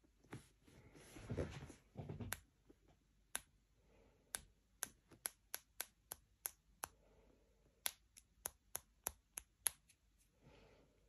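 A finger flicking the barrel of a plastic syringe with a needle attached, a run of sharp clicks about two to three a second, to knock air bubbles in the liquid up toward the needle. It starts with a brief rustle of handling.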